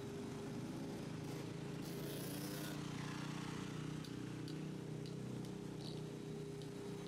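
A car driving past on a wet street, its tyres hissing on the wet pavement about two to three seconds in, over the steady hum and whine of a vacuum tanker truck running at the curb.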